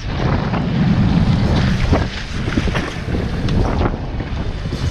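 Heavy wind buffeting the microphone on a boat under way, over the low rumble of the boat's motor and water against the hull, with scattered knocks and splashes.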